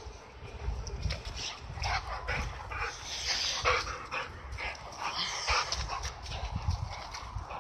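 A young pit-bull-type dog making repeated short, excited vocal sounds during play.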